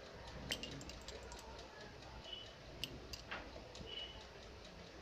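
A few faint, sharp clicks and ticks of metal tool parts being handled on the tool slide of an automatic lathe that is not running, over a low steady hum.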